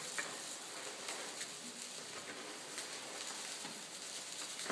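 Dry ice in a bowl hissing steadily with faint scattered crackles as a hand stirs it during the making of a model comet.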